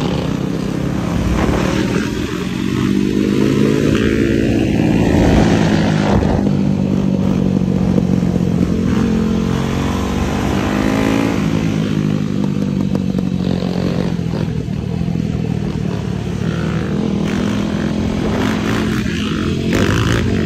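Yamaha YFZ450R quad's 450 cc single-cylinder four-stroke engine running hard, its pitch rising and falling again and again as the throttle is worked to hold a long wheelie.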